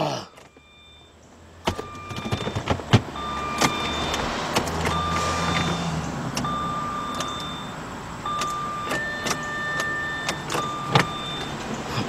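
Electronic warning beeps from a 2003 Jaguar S-Type's dash, a short tone repeating about once a second, with one longer, higher tone near the end. Sharp clicks come throughout, and a low motor hum runs briefly about four to six seconds in.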